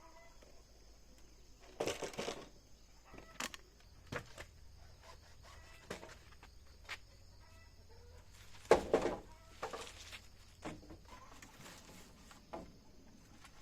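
Chickens clucking and squawking in a few short bursts, the loudest near the middle, with scattered sharp knocks between them.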